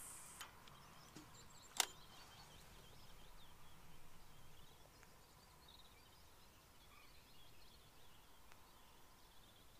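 Near silence of an open riverbank, with faint distant bird chirps and a single sharp click a little under two seconds in.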